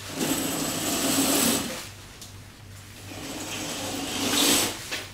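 Floor-length curtains drawn open by hand along their rail, the runners sliding in two long swishes of about a second and a half each, the second starting about three seconds in.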